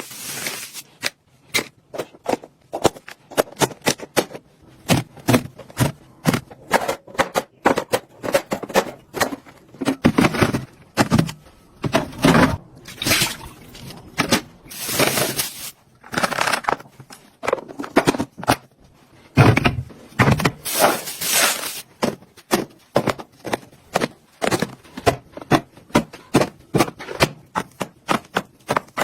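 Items being handled and set down while a fridge is organized: a steady run of clicks, knocks and clatters of containers and bottles, several a second, with a few longer scrapes and rustles.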